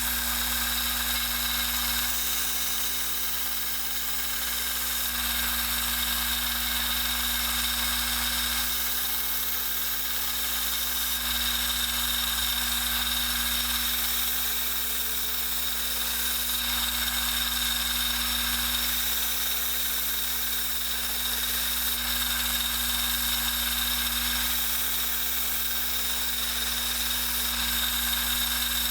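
Kalamazoo 1SM 1x42 belt sander running with a steady motor hum and a hiss from a 220 grit belt grinding a knife's edge bevel. The level rises and falls gently every few seconds.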